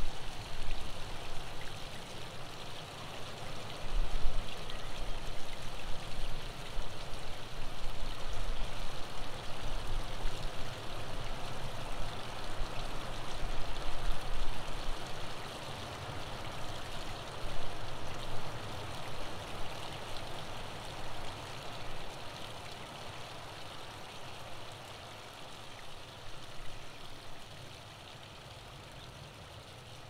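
Waterfall splashing and rushing steadily, with a low rumble in the first half, the whole sound slowly fading over the second half.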